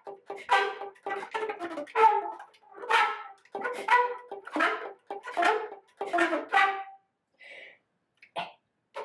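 Flute played with extended technique: a series of about ten short, breathy, accented notes, each a puff of air noise with a pitch in it, then only a few faint, scattered sounds near the end.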